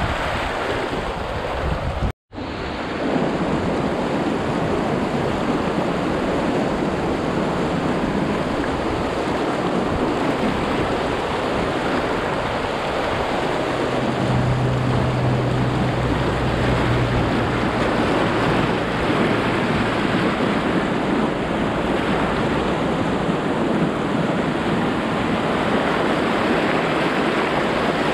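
River whitewater rushing and splashing around an inflatable kayak running a riffle, with wind buffeting the microphone. The sound drops out completely for a moment about two seconds in, and a low steady hum joins for a few seconds midway.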